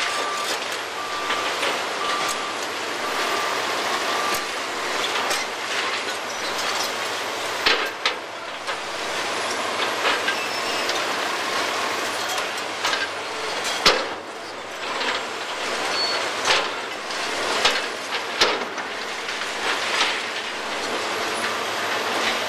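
Excavator engine and hydraulics running steadily under load while an NPK U31JR concrete pulverizer crushes concrete, with sharp cracks and snaps of breaking concrete scattered through. A backup alarm beeps about once a second for the first few seconds.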